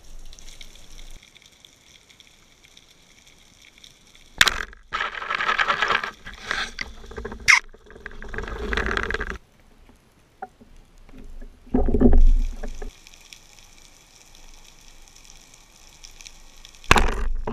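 Water sloshing and rushing around an underwater camera as a spearfisher dives, in several irregular bursts with quiet stretches between, and a sharp click in the middle.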